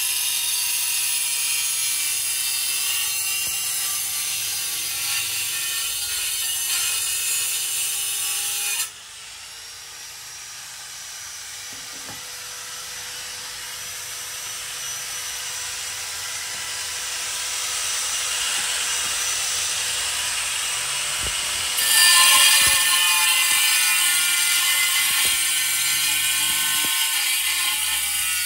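Handheld angle grinder with a diamond disc cutting a ceramic tile: a steady, high-pitched grinding whine. It drops sharply in loudness about a third of the way in, slowly builds again, and turns loud once more near the end.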